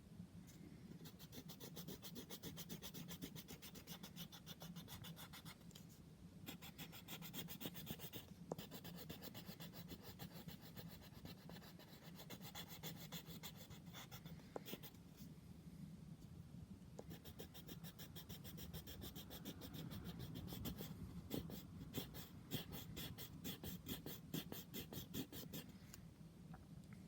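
A pen or pencil scribbling on paper in fast back-and-forth strokes, as in colouring in. It comes in several stretches with short pauses between, over a faint steady low hum.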